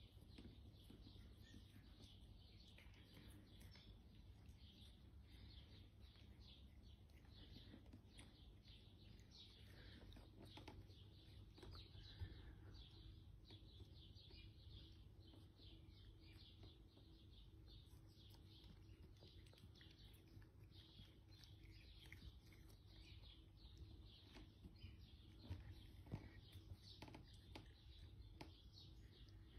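Faint birds chirping continuously in the background, with a few soft clicks.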